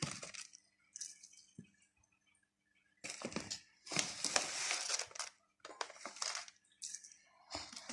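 Plastic bag of dry oat flakes rustling and crinkling as the flakes are scooped out and tipped into a bowl of milk, in several short bursts starting about three seconds in.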